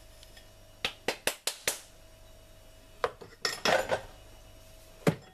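Clinks and knocks of kitchen bowls and utensils being handled on a counter: five quick knocks about a second in, a cluster around three to four seconds in, and one sharp click near the end.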